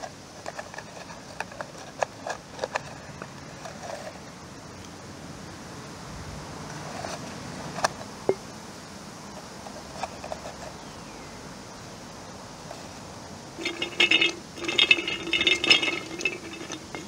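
Light clicks and taps as dry plant stalks are pushed into a tin can. Then, with about three seconds to go, a busy run of clinks and rattles with a ringing note, as hands rummage in a glass jar of stalks, corks and pine cones.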